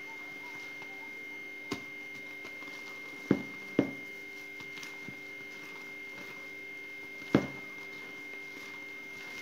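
Wire hand whisk stirring flour into whipped egg batter in a plastic bowl, its wires knocking sharply against the bowl four times, twice in quick succession midway. A steady thin high whine sounds throughout.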